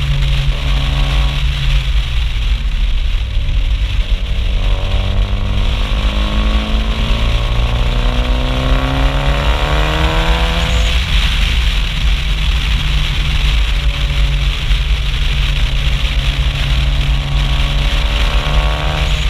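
Mitsubishi Lancer Evolution IV's turbocharged four-cylinder exhaust under way, with heavy wind rush on the spoiler-mounted microphone. The revs climb steadily from about four seconds in to about ten and a half, then drop back to a steady low drone.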